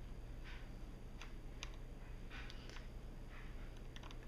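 Small Phillips screwdriver working the tiny battery-connector screws inside an iPhone 4S: faint, scattered light clicks and soft scraping of the metal tip in the screw heads.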